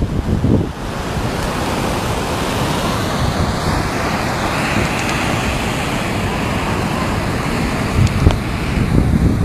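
Rough sea surf breaking and washing up a sandy beach, a continuous rushing wash. Wind buffets the microphone in low rumbling gusts in the first second and again near the end.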